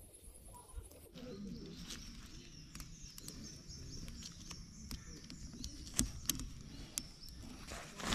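Birds chirping rapidly and repeatedly from about a second in. A few sharp knocks cut through, the loudest about six seconds in.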